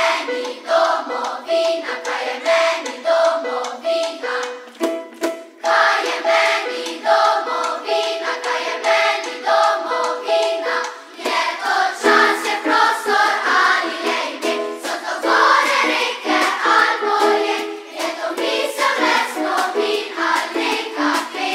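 Children's choir singing with band accompaniment. An instrumental introduction with a repeating pattern of alternating notes comes first, and the choir comes in about five or six seconds in.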